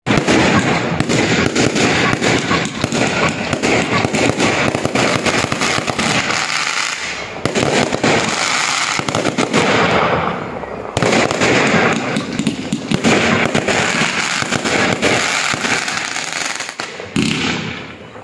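Aerial fireworks going off in a dense, rapid barrage of bangs and crackles, with short lulls about seven, ten and seventeen seconds in.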